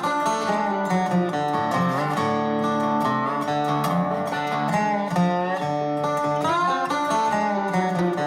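Music led by acoustic guitar, plucked and strummed notes with a few that bend in pitch.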